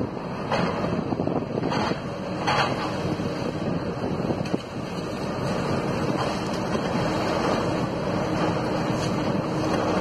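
Komatsu PC200F forestry harvester's diesel engine and hydraulics running under load while its 370E harvester head works a eucalyptus stem at the stump. There are a few sharp cracks in the first three seconds, and a steady hum comes in about seven seconds in. Wind buffets the microphone.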